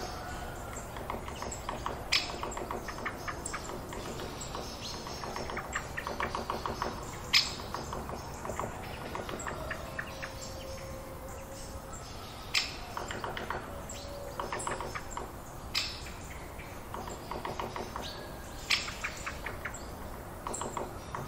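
Countryside forest ambience: several birds chirping and calling, with rapid chattering trills and a handful of sharp, louder chirps a few seconds apart, over a steady low background rumble.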